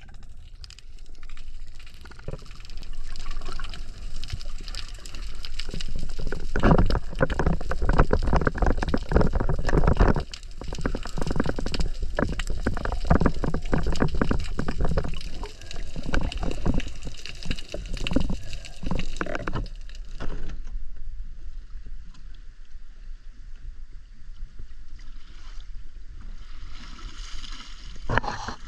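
Underwater sound through a spearfishing camera: dense crackling and knocking over rushing, bubbling water, loudest while a speared fish is being handled. It breaks off about twenty seconds in to quieter water and wind sounds at the surface.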